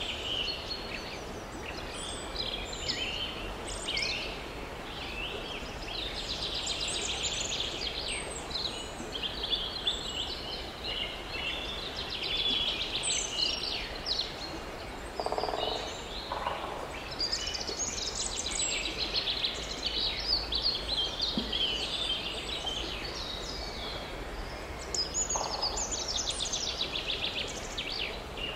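Songbirds singing around a forest lake: several overlapping high chirps and trills throughout, with a couple of short, lower calls about halfway through.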